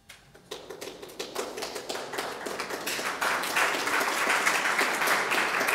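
Audience clapping: a few scattered claps at first, building into full, steady applause after about three seconds.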